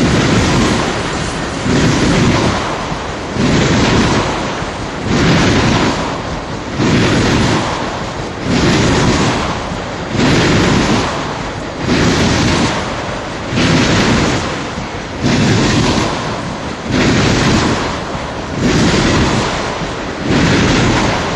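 Freight train of tank cars rolling past close by: a steady rumble and rush of steel wheels on the rails. It swells in a regular beat a little under every two seconds as each car goes by.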